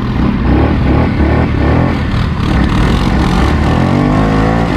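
Segway Snarler ATV's 570 cc single-cylinder engine running under way, the revs climbing near the end as it accelerates.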